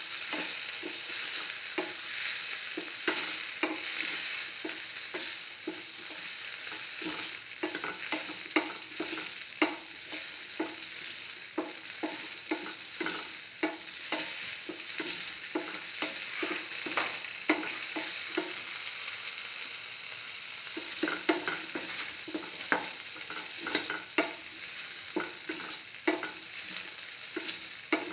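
Shallots, tomato and green chili sizzling in oil in a pan while being stirred, the utensil scraping the pan in frequent short strokes. The stirring slows for a few seconds about two-thirds of the way through, then picks up again.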